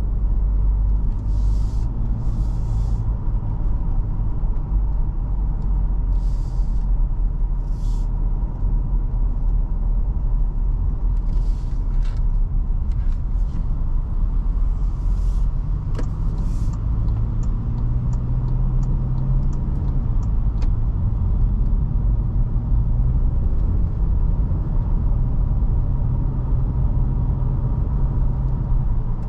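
Driving noise from a 2021 Toyota Fortuner's 2.7-litre naturally aspirated four-cylinder petrol engine and its tyres on the road: a steady low rumble. Brief hissing swells come and go, and a short run of light, evenly spaced ticks sounds about two-thirds of the way through.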